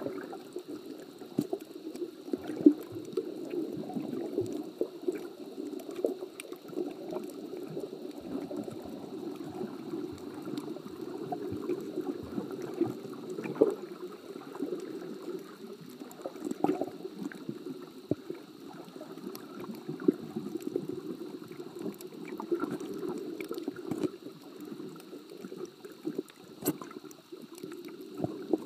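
Underwater ambience heard through a camera in a waterproof housing: a steady, muffled water murmur that gurgles and swells, with scattered small clicks and pops throughout and a faint steady high tone.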